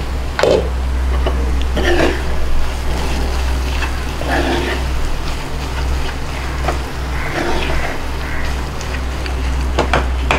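A wooden spatula stirs and scrapes a thick onion-tomato masala in a nonstick pan, a few strokes a couple of seconds apart, over a steady low hum.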